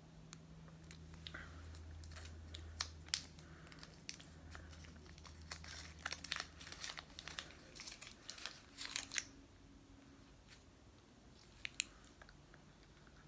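Foil-and-paper wrapper of a Bird's Milk chocolate candy being unwrapped by hand: a run of crinkles and crackles, thickest from about two to ten seconds in, with a few more near the end.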